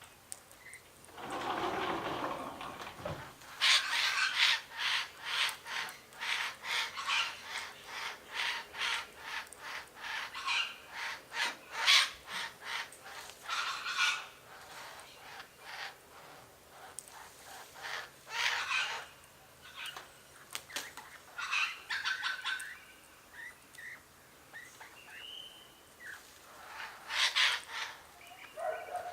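Wild birds calling, in a long run of short repeated notes about three a second, then several shorter bouts.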